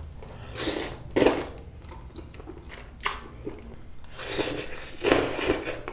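Slurping and chewing of Japagetti black-bean-sauce instant noodles: noodles are sucked up from chopsticks in two bursts, about a second in and again about four seconds in, with soft wet chewing between.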